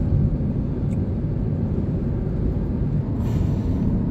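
Steady low rumble of road and wind noise from a car cruising on an expressway, with a brief hiss a little after three seconds in.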